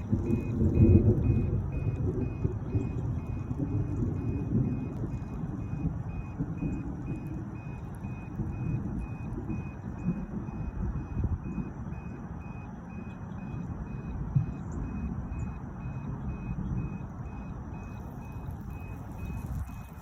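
Hoverboard rolling over wet pavement: a low, uneven rumble that swells and fades, with a faint high electronic beep repeating about twice a second throughout.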